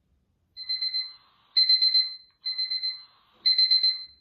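Alarm of a G63 mini smart light sound machine going off: groups of rapid electronic beeps on one high tone, about one group a second, starting about half a second in, with every other group louder.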